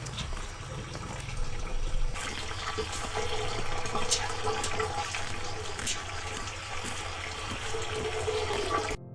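Water running and splashing steadily, with scattered sharp clicks and knocks.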